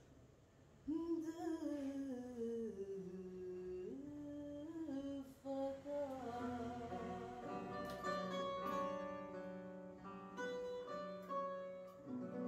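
Live fado: a woman's voice enters about a second in and sings a long, slowly falling phrase over plucked acoustic guitar. In the second half the guitar notes come forward under the singing.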